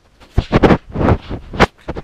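Hands grabbing and fumbling with a small action camera right at its microphone, a quick run of loud rubs and knocks.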